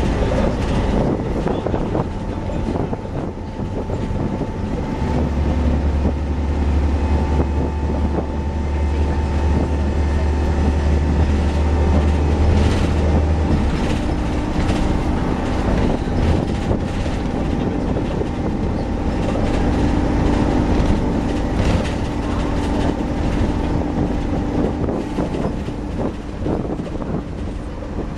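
Inside a moving Optare Solo bus: steady running noise with a constant whine from the engine's cooling fan. A heavy low rumble joins in about five seconds in and stops about nine seconds later.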